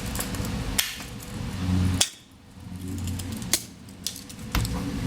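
Handling noise from a cable teardown at the bench: four sharp clicks and knocks, spaced about a second or more apart, over low rumbling handling noise.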